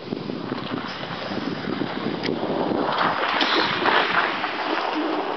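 Late-1960s Pargo electric golf cart driving past over packed snow: tyre noise on the snow with the cart's drivetrain running, growing louder from about three seconds in as it comes close.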